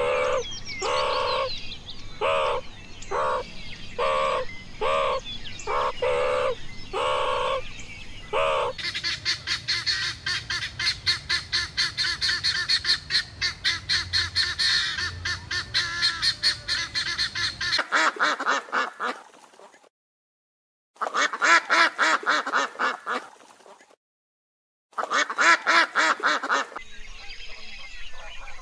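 Animal calls: a run of about nine pitched calls, roughly one a second, then a fast pulsing chatter of several beats a second, then three longer calls separated by sudden silences.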